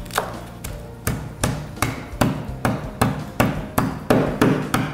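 A heavy pestle pounding green chillies on a wooden chopping board: a steady run of about a dozen dull knocks, roughly two and a half a second, with soft background music.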